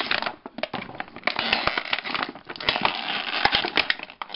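Clear plastic blister packaging crinkling and crackling as it is gripped, flexed and pulled apart, with many sharp clicks in irregular bursts.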